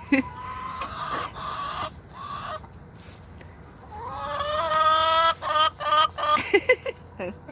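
Hen clucking and squawking in a string of agitated calls, with one long drawn-out call about four seconds in followed by short clipped clucks: the hen is complaining, angry at the new birds in her coop.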